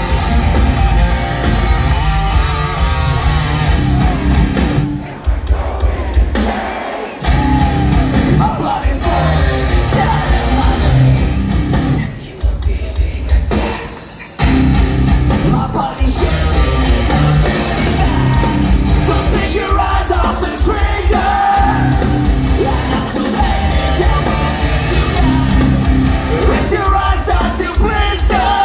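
Heavy metal band playing live in a large hall: distorted electric guitars, bass and drums with shouted and sung vocals, heard from within the crowd. The music drops away briefly twice, about five and twelve seconds in, before kicking back in.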